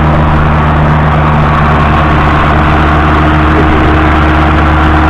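John Deere 7710's 8.1-litre six-cylinder diesel engine running steadily while the tractor pulls a heavy single-furrow deep plough, passing close by.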